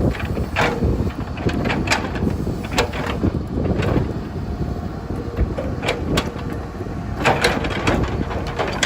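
Hydraulic excavator running at work: a steady engine rumble with repeated sharp metallic clanks and knocks from the working machine.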